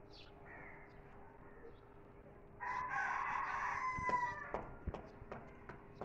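A rooster crows once, a single held call lasting about a second and a half, starting a little before halfway and trailing off slightly at the end. A few sharp clicks follow just after it.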